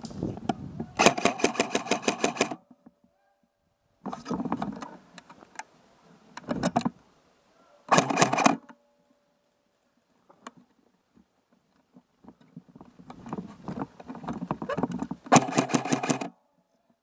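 G&P Viper airsoft electric rifle firing three full-auto bursts of rapid, evenly spaced shots: the first about a second and a half long starting about a second in, then two shorter ones about 8 and 15 seconds in, with duller rustling noise between them.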